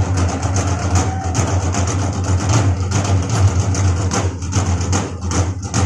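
Barrel drums struck with drumsticks by several drummers in a quick rhythm, over a steady heavy low hum.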